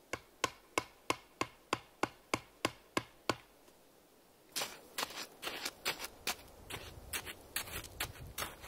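A tent peg being knocked into frozen ground: about eleven sharp, even knocks, roughly three a second. After about four and a half seconds comes a quicker, irregular crunching and rustling of snow.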